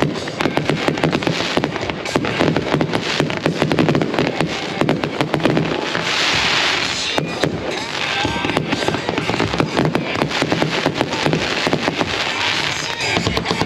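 Fireworks finale: a dense, continuous barrage of shots and bursts with crackling. There are brighter hissing stretches about six seconds in and near the end.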